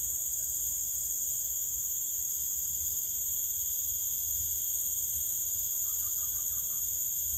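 Steady, high-pitched chorus of insects, an unbroken drone of a few even tones, with a faint low rumble underneath.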